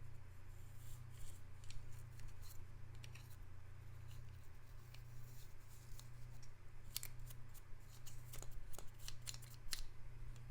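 Small scratchy clicks and scrapes of an earbud cleaning pen working in a plastic charging case. They come thicker near the end, over a low steady hum.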